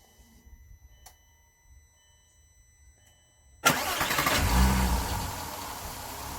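Volkswagen Bora V6 engine starting on freshly changed oil: after a few faint clicks it starts suddenly about three and a half seconds in, flares up in revs briefly, then settles to a steady idle.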